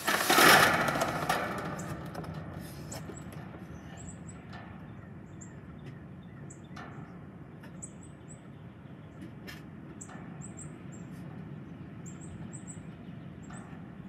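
Strong wind: a loud gust buffeting the microphone in the first second or so, easing into a steady rush of wind. Small birds chirp in short, high notes over it, with a few sharp ticks.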